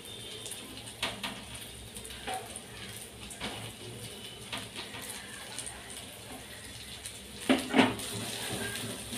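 Chicken seekh kebabs frying in shallow oil in a nonstick frying pan, a soft steady sizzle, with light clicks of metal tongs against the pan as the kebabs are turned. A couple of louder knocks come near the end.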